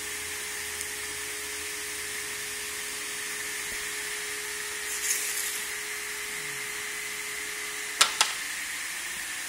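Steady hiss and hum of a pneumatic machine standing ready, with a short puff of air about five seconds in. Near the end come two sharp clacks a fraction of a second apart.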